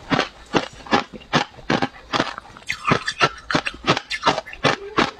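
Mouthful of frozen matcha ice being chewed close to a clip-on microphone: crisp, regular crunches, about three a second.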